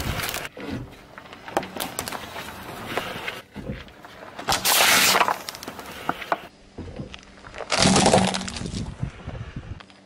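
A car tyre rolling slowly over objects on asphalt, crushing them one after another with crackling and crunching. The loudest part comes about halfway, as a plastic bottle of liquid bursts flat under the tyre. Another loud crunch follows near the end.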